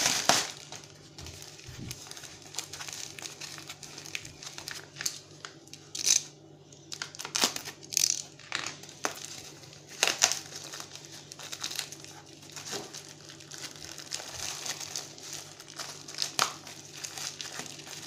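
Plastic postal mailer and the plastic wrapping inside it crinkling and rustling as hands tear it open and unwrap the contents, in irregular bursts.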